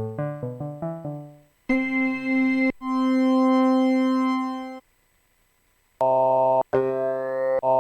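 Synthesizer keys played in Maschine 2.0: a quick run of short, fading notes, then held chords that stop abruptly, with a second of silence between them, like sounds being auditioned for a dub techno groove.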